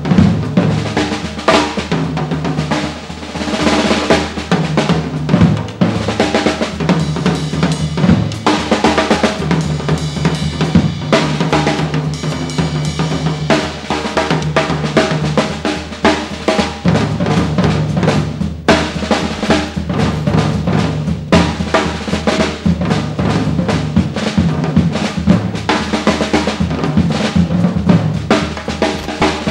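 Jazz drum kit solo: rapid snare, rimshot, bass drum and cymbal strokes with rolls, played over a repeating piano-and-bass vamp in 5/4.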